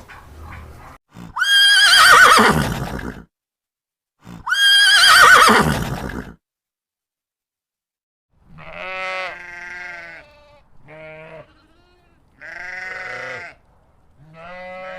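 A horse whinnying twice, each call starting high, wavering and falling away over nearly two seconds. After a pause, four shorter, lower, quavering bleats from a goat.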